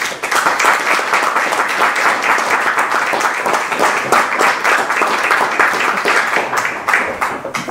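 Audience applauding: many hands clapping steadily, breaking out at once and dying away near the end.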